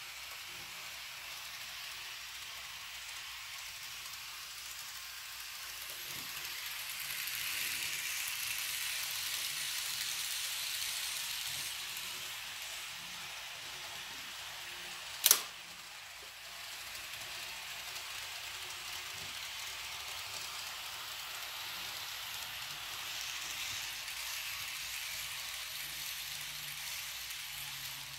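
Kato N scale model train running on Unitrack: a high, hissy whir of the small motor and the wheels on the rails, growing louder and fading as the train comes by. A single sharp click about fifteen seconds in.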